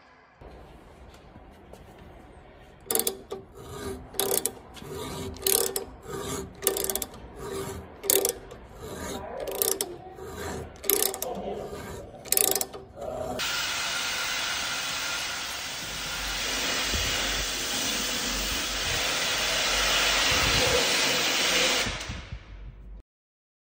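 Workshop tool work: about a dozen sharp strikes with a short ringing tone, roughly one a second. About halfway through comes a steady power-tool noise, which fades and stops shortly before the end.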